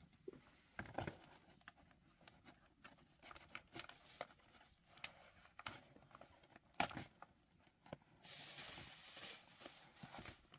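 Faint crinkling and rustling of a raw sausage package being handled and opened, with scattered small clicks and a longer stretch of crinkling about eight seconds in that lasts about a second and a half.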